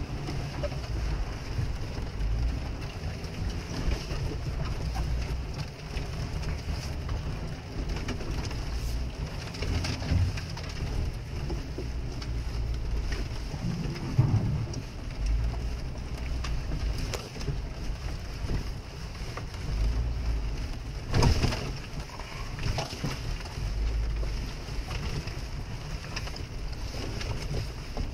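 Cabin sound of a Jeep crawling over a muddy, rutted field in the rain: a low, uneven engine and drivetrain rumble with rain hissing on the body and windshield. There are scattered knocks as the Jeep rocks over ruts, a sharp one about three-quarters of the way through.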